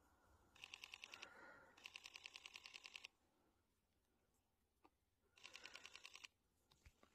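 Camera shutter firing in continuous bursts: three faint, quick runs of clicks, about nine a second, the middle run the longest.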